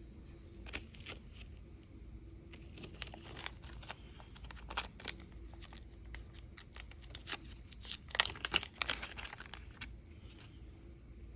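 Small metal pocket gear being handled: a run of sharp clicks and brief scrapes, scattered throughout and clustered most densely about eight seconds in.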